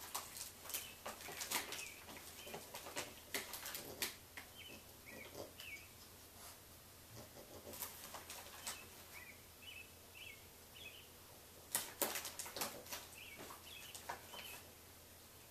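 Small birds chirping in short high notes every second or so, over clusters of sharp clicks and taps that come in bursts near the start, in the middle and about three quarters of the way through.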